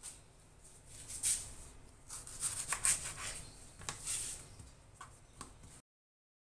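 A kitchen knife and hands working an onion and tomato on a cutting board: scattered crisp taps and papery scrapes, with no steady rhythm. The sound cuts off suddenly near the end.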